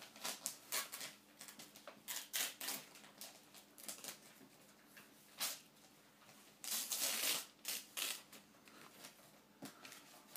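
Christmas wrapping paper rustling and crinkling in short, irregular scrapes as a child's hands work it off a present, with a longer, louder stretch of rustling about seven seconds in.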